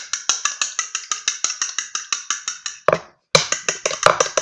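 A fork rapidly beating eggs in a bowl: sharp, even clicks about seven a second, a brief pause about three seconds in, then more beating.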